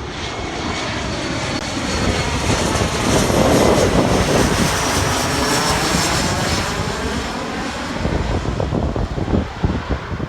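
Airliner flying over on its landing approach, the engine noise with a high whine building to a peak about four seconds in, then fading away. Wind gusts on the microphone near the end.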